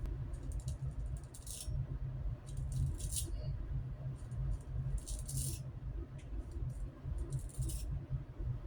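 Wet-shaving sounds on a face: about half a dozen short, scratchy strokes at irregular intervals over a low steady hum.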